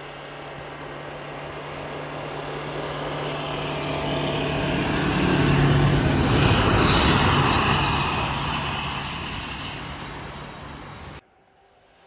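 Toyota Hilux pickup driving through deep snow past the camera: the engine pulls steadily under load while the tyres throw up snow with a hiss, growing louder to a peak about halfway through and then fading. The sound breaks off abruptly near the end.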